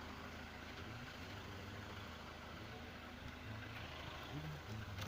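A low, steady engine hum, like an engine idling, with an even hiss over it.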